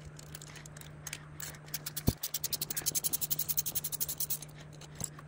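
A knock about two seconds in, then about two seconds of rapid, evenly spaced clicking, about ten clicks a second, from a tool working on the 3D printer's parts during disassembly.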